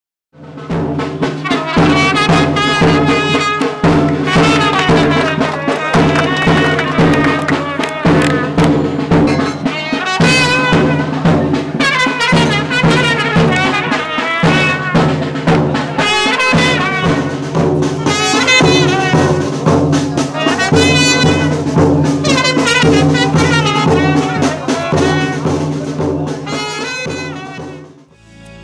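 Instrumental background music: a wavering lead melody over steady low notes and percussion, fading out near the end.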